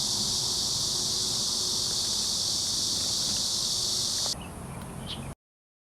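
Steady insect chorus, a dense high buzz, that cuts off suddenly a little over four seconds in, leaving a fainter outdoor background.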